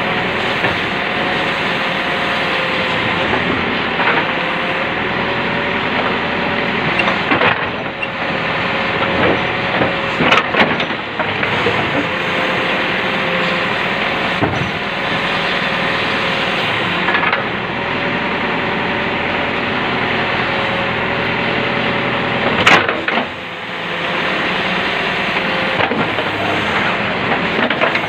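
Heavy diesel earthmoving machine running steadily with a held whine, while scattered sharp knocks and scrapes come from its bucket working against a tipper truck's body; the loudest bang comes near the end.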